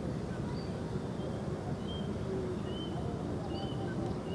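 Outdoor rural ambience: a steady low rumble of open-air noise with faint, short bird chirps repeating throughout.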